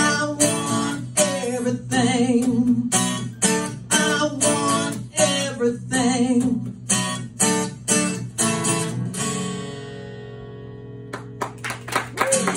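Acoustic guitar strummed in a steady rhythm under a man's singing voice holding long wavering notes. About nine seconds in, the strumming stops on a chord that rings and fades. A few quick strums start again near the end.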